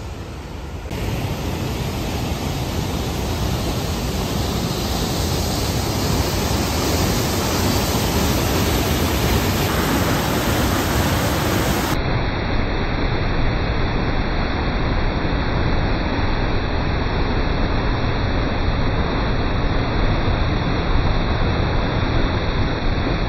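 Sol Duc River rushing over rocks, growing louder over the first few seconds. After a cut about halfway through it becomes the steady rush of Sol Duc Falls close by.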